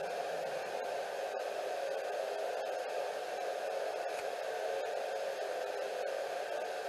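Steady static-like hiss with no other sound, broken by a few very brief dropouts.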